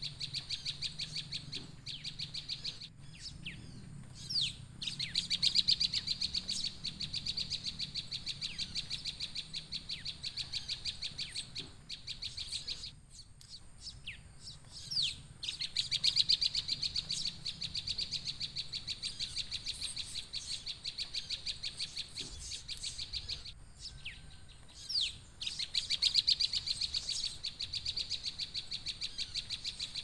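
Recorded prenjak (prinia) song played from an MP3 player as a lure for a bird trap: a fast, even run of high chirps that breaks off about every ten seconds with a short gap and a few quick falling notes, then starts again. The same pattern plays about three times over, as a looped recording does.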